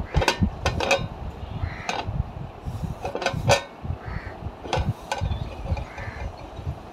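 Short, harsh bird calls like crows cawing, coming in small clusters several times, over a low rumble.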